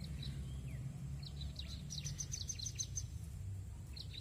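Small birds chirping, with scattered short high calls and a quick run of about eight evenly spaced high notes around two to three seconds in, over a low steady rumble.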